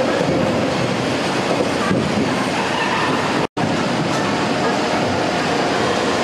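Steady mechanical rattle and rumble of an apple sorting and packing line running, with its conveyors in motion. The noise breaks off abruptly for an instant about three and a half seconds in, then carries on.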